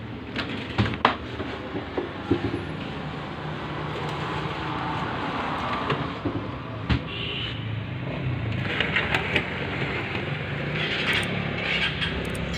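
Clicks and knocks of a Polytron flat-screen TV being taken apart by hand: its plastic back cover and screws being worked loose. There is a run of quick clicks near the end, over a steady background rumble.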